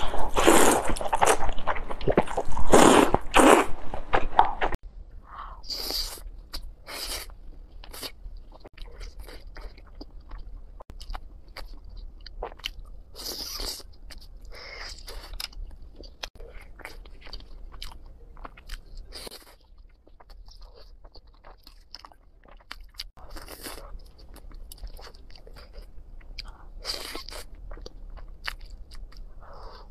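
Close-up eating sounds: loud wet slurping of sliced meat dripping with chili oil for about the first five seconds, then quieter bites and chewing of sauced skewered sausages, with crisp crunches now and then.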